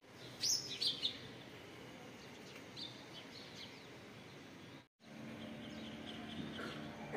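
Small birds chirping: a quick cluster of high, sharp chirps in the first second, then scattered fainter chirps over a steady low background hum. The sound cuts out briefly about five seconds in.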